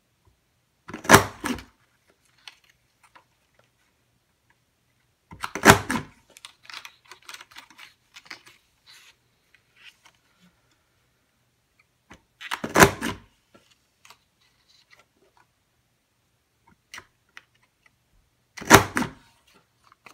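Creative Memories Rollercoaster border punch cutting through black cardstock: four loud clunks as the punch is pressed down, several seconds apart, with soft rustling of the paper being slid along and lined up between them.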